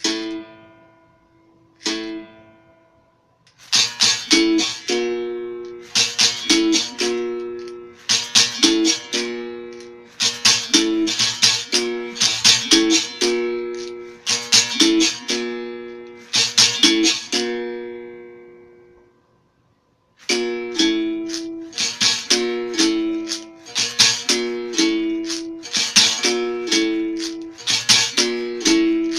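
Berimbau played with a stick on the wire and a shaken caxixi rattle. A couple of single ringing notes give way to a steady rhythmic toque that alternates two close notes, open and stone-pressed, over crisp rattle strokes. The playing stops for about a second two-thirds of the way through, then resumes with a busier pattern.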